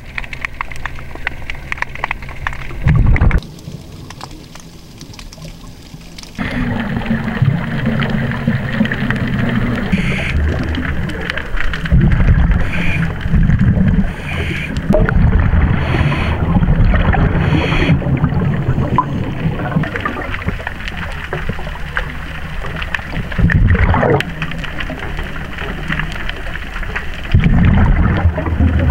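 A scuba diver breathing through a regulator, heard underwater: long stretches of low bubbling rumble from exhaled air, with a quieter gap about four to six seconds in.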